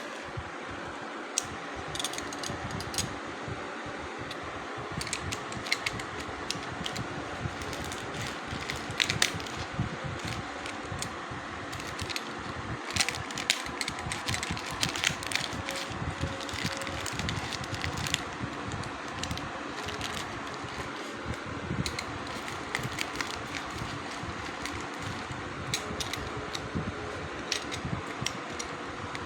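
A steady fan whir with many small sharp clicks and taps scattered through it, most frequent in the middle.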